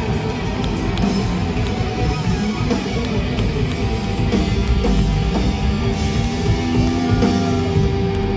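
Live heavy metal band playing loudly: electric guitar, bass and drum kit in a dense, steady wall of sound.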